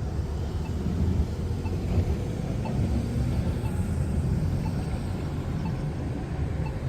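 A loud train passing, a steady low rumble.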